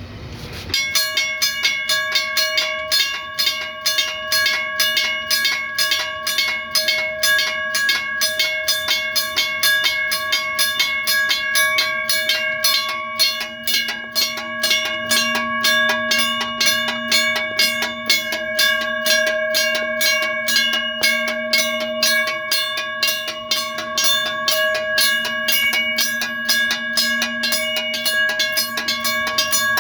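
Two railroad crossing bells, a US&S teardrop bell and a WRRS bell, ringing together in rapid, steady strikes, about four a second. They start just under a second in.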